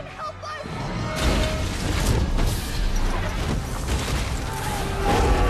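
Movie sound effects of a fiery blast tearing through wooden fairground stalls: a loud rush of fire, crashing debris and a heavy low rumble that starts about a second in, mixed with the film score. A shouted call for help is heard just before it.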